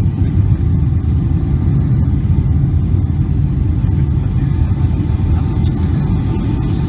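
Jet airliner cabin noise on landing: a loud, steady low rumble of the engines and rushing air, heard from inside the cabin.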